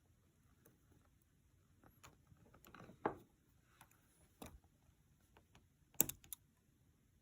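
A few faint, scattered clicks and taps of a spudger working at a phone's small cable connectors. The sharpest come about three seconds in and again about six seconds in.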